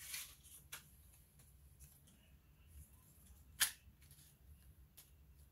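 Sheets of paper being handled and laid down on a heat press pad: a short rustle at the start, then a few light ticks and one sharp tap about three and a half seconds in, over a low steady hum.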